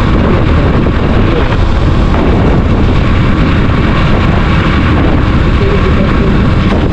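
Motorcycle riding at speed: loud, steady wind rumble on the microphone over the running engine.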